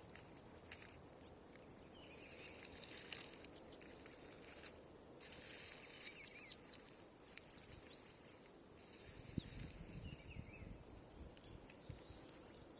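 Bananaquit singing: rapid runs of very high, thin notes, each quickly falling in pitch, coming in short bursts and loudest in the middle stretch.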